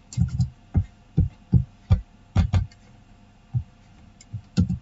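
Computer keyboard keystrokes and mouse clicks: about a dozen irregular taps, each with a dull thump.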